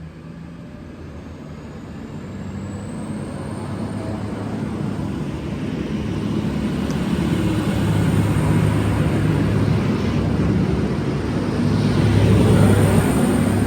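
V/Line VLocity diesel multiple unit pulling away, its diesel engines getting steadily louder as it accelerates, with a faint high whine rising in pitch over the first few seconds.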